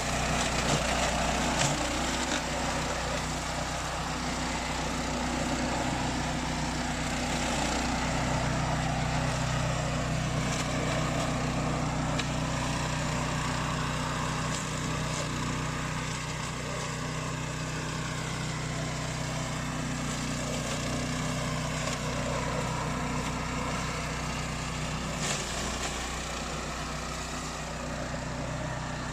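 Beast 800 remote-control flail mower running steadily, its engine holding an even note with a constant hiss over it.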